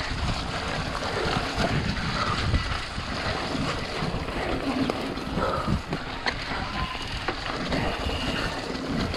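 Wind rushing over a chest-mounted GoPro's microphone as a mountain bike rolls over a muddy dirt trail, with tyre noise and a few sharp knocks and rattles from the bike.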